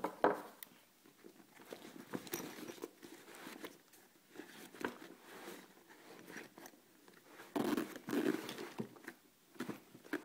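Soft-sided fabric tackle bag being handled: rustling fabric and small irregular clicks and knocks as items go back into its front pocket and the pocket is zipped shut, with a denser stretch of rustling about three-quarters of the way through.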